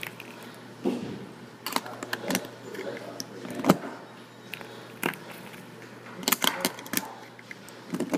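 A series of irregular sharp clicks and knocks, eight or nine in all, the loudest about three and a half seconds in, with a cluster of them a little past six seconds in.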